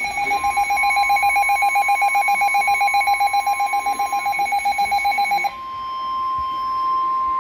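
Emergency Alert System attention signal: a harsh, rapidly pulsing alarm tone over a steady single tone, the pulsing cutting off about five and a half seconds in and leaving the steady tone sounding alone.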